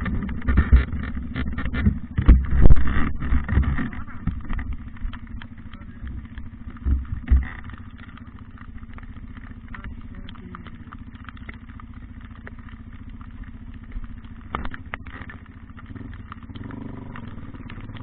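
A vehicle engine running steadily, with loud low bursts of noise during the first few seconds and again about seven seconds in.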